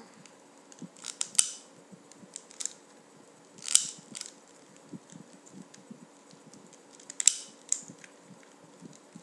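Long-neck utility lighter's trigger clicked again and again without catching a flame: sharp clicks in a few separate groups, a second or more apart.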